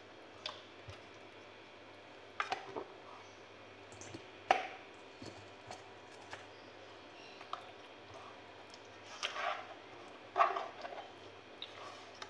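Scattered soft wet squishes and light knocks as marinated fish pieces are handled and laid into a nonstick pan of marinade, the sharpest knock about four and a half seconds in. A faint low steady hum lies underneath.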